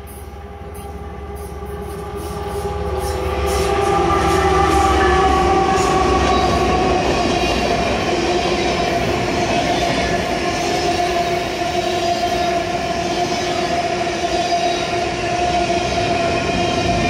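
Freight train passing close by: the diesel locomotives' rumble builds as they approach and go past, then a long string of empty covered grain hopper cars rolls by with steady wheel-and-rail noise. Steady ringing tones sound over the wheel noise throughout.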